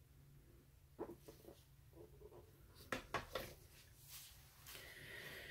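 Near silence broken by a few faint clicks and light taps, with a quick cluster of them about three seconds in, then a soft hiss near the end.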